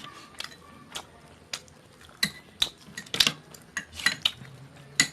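A utensil clinking and scraping against a plate while eating: a string of sharp clinks, few at first and then quicker and louder from about two seconds in.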